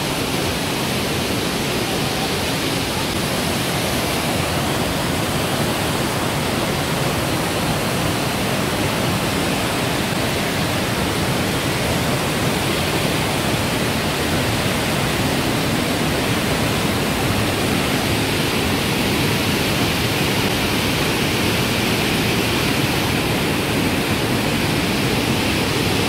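Fast mountain stream rushing as whitewater through a narrow rock gorge: a loud, steady rush of water.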